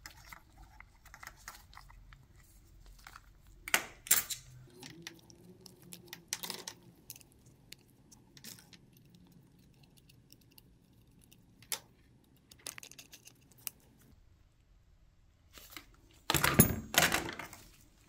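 Small plastic parts of a motorcycle turn-signal mount clicking, tapping and rubbing as they are handled and pressed into a metal bracket, with sharper knocks about four and six seconds in and a louder burst of rubbing and clatter near the end.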